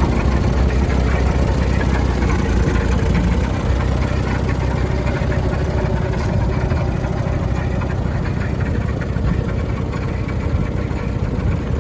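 Mercedes-Benz Unimog UX100's diesel engine idling steadily.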